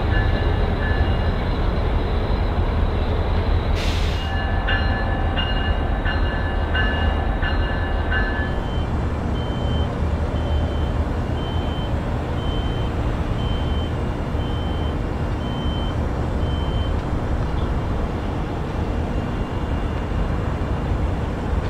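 MPI MP36PH-3C diesel locomotive of a FrontRunner commuter train running slowly through a yard, with a steady low engine rumble. A repeated high ding sounds about twice a second, then more slowly, fading out near the end. There is a short hiss about four seconds in.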